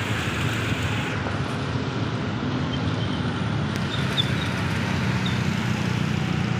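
Steady road traffic at a level crossing: motorcycle engines running, with a constant low hum.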